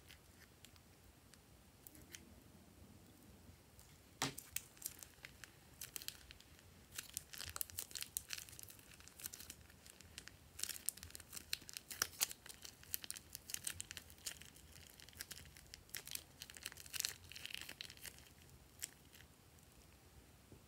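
Foam-bead slime being squeezed out of a plastic piping bag, crackling and popping in many small sharp clicks. The crackling starts about four seconds in, is densest in the middle and thins out near the end.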